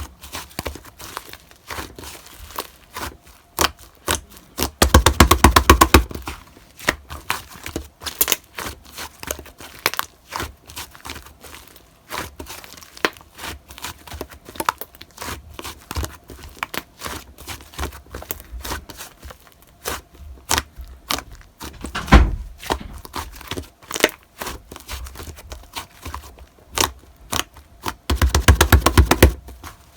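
Slime being kneaded and squeezed by hand, giving sticky clicks and small air-bubble pops. The pops come in rapid runs about five seconds in and again near the end.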